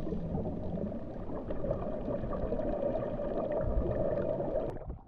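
Muffled underwater noise picked up by a camera held beneath the lake surface: a dense, steady low rumble and wash of water that cuts off sharply near the end.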